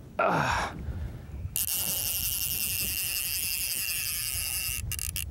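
Fly reel's drag buzzing steadily for about three seconds as a hooked fish runs and pulls line off the reel, ending in two short bursts; a short rasp comes just before it.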